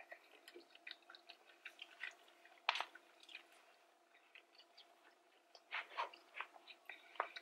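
Close-up chewing and mouth sounds of someone eating a rice bowl, with a plastic spoon scraping and tapping in a paper takeout bowl: a run of small scattered clicks, the sharpest about three seconds in and a cluster near the end.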